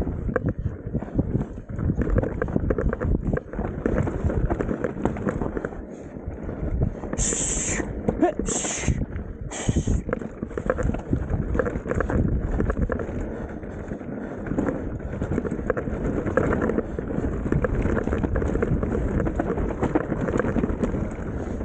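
Mountain bike riding down a rough, rutted trail: steady rumble and wind on the microphone, with the bike rattling over bumps. Three short high-pitched squeals come about seven to ten seconds in.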